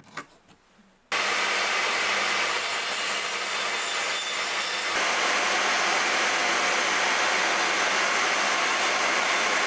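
Bandsaw running steadily while cutting wood for a pot lid, starting abruptly about a second in after a near-silent moment with faint pencil scratches.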